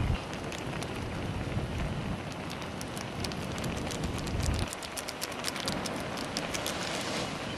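Noodle soup boiling in a camping pot on a portable butane gas stove: a steady hiss with dense bubbling pops, thickest from about three seconds in until near the end. A low rumble swells just at the start and again about four and a half seconds in.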